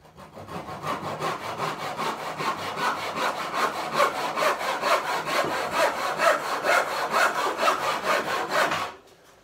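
Hand-sawing timber with an old tenon saw: rapid, even back-and-forth strokes cutting a tenon for a corner bridle joint. The sawing stops about nine seconds in.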